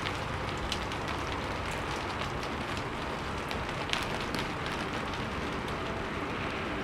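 Steady rain falling, an even hiss with many sharp individual drop hits and one louder drop hit about four seconds in.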